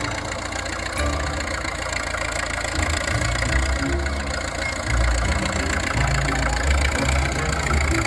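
Engine idling sound: a steady low rumble with an uneven, chugging pulse.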